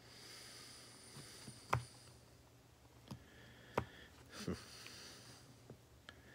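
Utility knife carving into a plastic skull: four sharp clicks as the blade cuts through, over light scraping and nose breathing.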